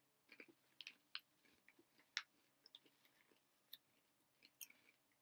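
Faint chewing of crunchy sea-salted popcorn kernels: a scatter of short, sharp, irregular crunches.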